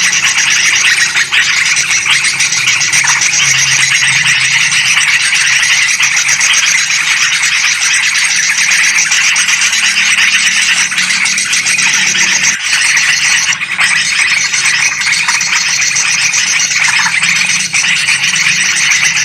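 Dense, continuous, noisy chattering of many yellow-vented bulbuls and sooty-headed bulbuls, a bird-trapping lure call, with a faint low hum beneath it.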